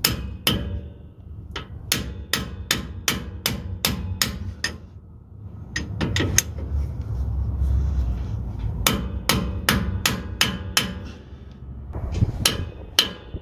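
Hammer blows on a seal driver, driving a new pinion seal into a Ford 8.8 rear axle housing. The strikes come in runs of sharp knocks, about three a second, with short pauses between runs.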